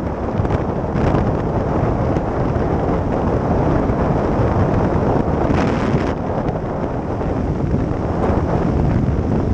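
Wind rushing and buffeting over the microphone of a camera on a motorcycle riding at road speed, with the bike's running and tyre noise buried beneath it. The rush swells briefly a couple of times, about halfway through most strongly.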